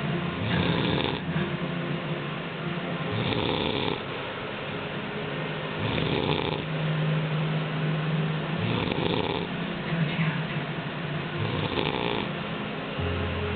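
A man snoring in his sleep, one loud snore about every three seconds, five in all.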